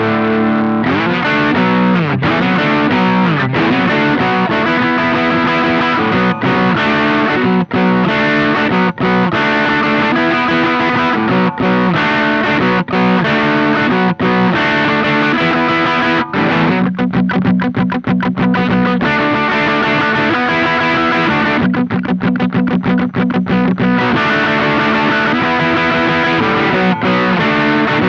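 Electric guitar played through a Velouria FX Witchcraft distortion/preamp pedal: heavily distorted chords and riffs, with sliding notes near the start. Twice in the later part there is fast repeated picking on one low note.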